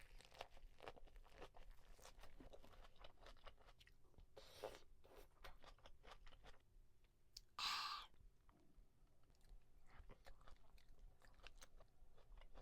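Close-miked mouth sounds of a person chewing a bite of raw salmon or flounder sashimi with garlic and chili pepper: many small wet clicks and crunches. There are two short breathy bursts, the louder one a little past the middle.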